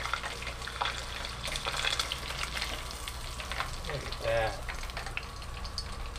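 Fish pieces in an egg-white coating crackling and sizzling as they deep-fry in hot oil in a pot, with a brief voice about four seconds in.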